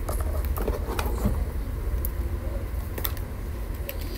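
Small screws and a screwdriver being handled, giving a few light clicks, as the bottom case of a MacBook Air is screwed back on, over a steady low rumble.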